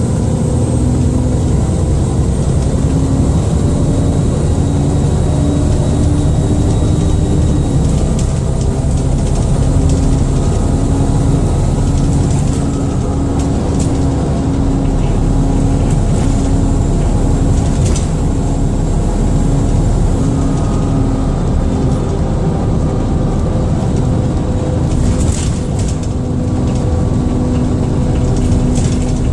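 Dennis Trident II / Enviro400 double-decker bus heard on board while running: a steady engine drone with a thin high-pitched turbo whine and cooling fan noise over it. The drone's pitch drops slightly about eight seconds in, and a few light rattles and clicks come through.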